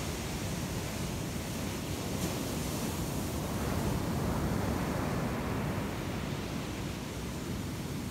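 Ocean surf breaking on a beach: a steady rushing wash of waves that swells a little about four seconds in.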